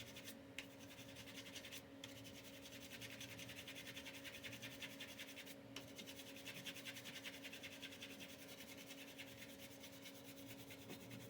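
Faint, rapid scratching of a brush's bristles working over a laptop cooling fan's blades and heatsink fins, dislodging dust.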